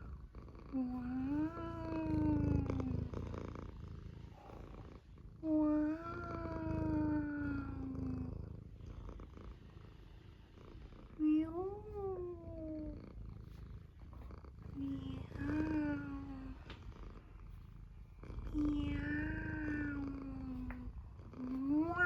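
Domestic cat purring steadily close to the microphone. Over the purring come about six long, drawn-out calls, each gliding up and then down over two to three seconds.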